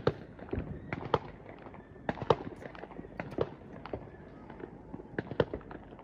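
Fireworks going off: an irregular scatter of sharp bangs and crackles, several a second, the loudest about two seconds in.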